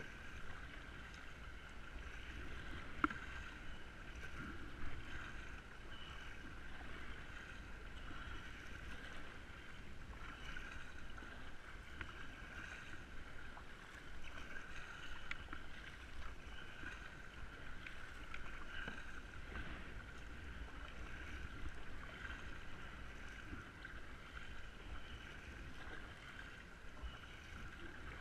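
Kayak being paddled on calm water: paddle and water sounds against the hull, with a steady high-pitched hum and a few faint knocks.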